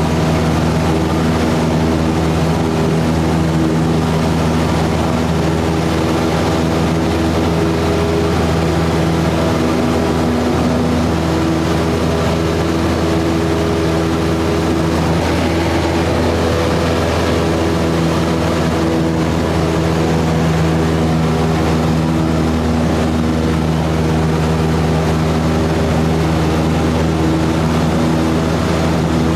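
Cessna 172's piston engine and propeller running steadily in flight, heard inside the cabin as a constant drone.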